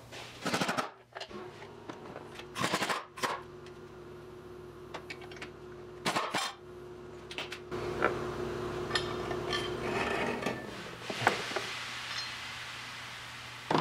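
Ratchet wrench clicking in short runs as the bolts holding a bracket to the transmission are worked loose, with a steady hum underneath. Near the end comes metal clatter and scraping as the loosened cast metal bracket is handled.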